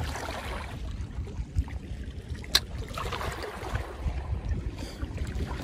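Wind buffeting the microphone with small sea waves lapping at a rocky shore. A single sharp click about two and a half seconds in.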